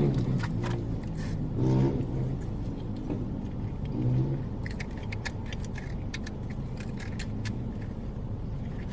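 Eating sounds: chewing with sharp wet mouth clicks over a steady low hum. A few short murmurs come in the first half, and the clicks cluster in the second half.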